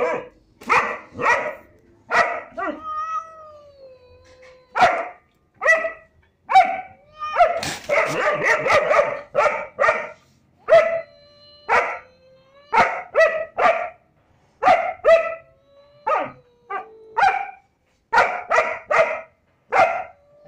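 German shepherd barking repeatedly at a cat, in sharp barks mostly two or three at a time. A thin, drawn-out whining tone sounds in several of the pauses between barks.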